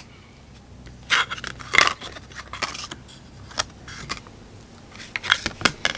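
Large laminated cards being handled: a few brief scrapes and light taps as a card is slid and set into a small card stand.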